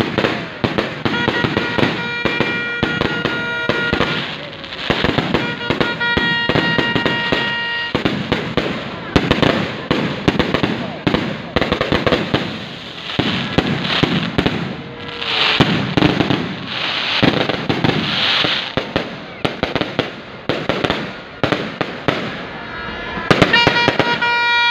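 Aerial fireworks going off overhead in quick succession: a dense, unbroken run of bangs and crackling bursts.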